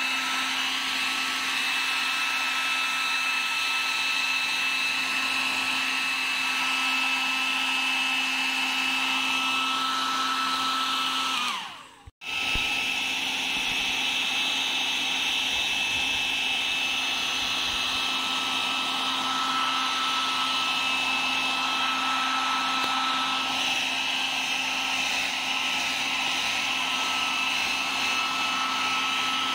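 Hair dryer running steadily with a constant whine. About twelve seconds in it winds down and cuts out, then comes back suddenly at full speed.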